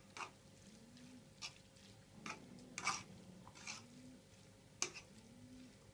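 Metal fork scraping and tapping against a frying pan as spaghetti is tossed and stirred: about half a dozen faint, separate scrapes.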